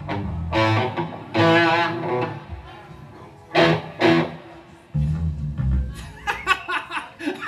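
Electric guitar through an amplifier playing a few long notes that waver in pitch, then some low notes about five seconds in.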